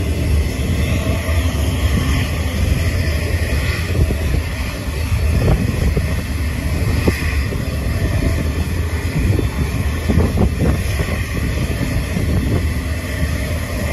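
Twin jet engines of an Air Canada Airbus A320-family airliner running at low power as it taxis: a steady low rumble, with wind buffeting the microphone.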